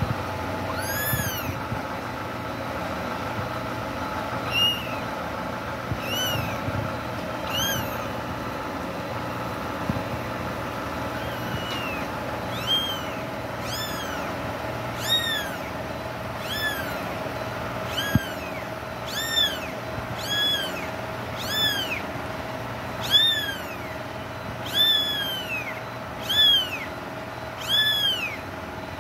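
Kittens mewing: short, high-pitched cries that rise and fall, a few scattered ones at first, then about one a second and louder toward the end. A steady hum runs underneath.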